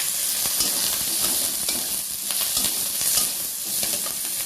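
A tempering (chhunka) of mustard seeds, cumin, dried chillies, curry leaves, raw mango and crushed ginger sizzling in hot mustard oil and being stirred in the pan. There is a steady frying hiss with many small crackles and taps.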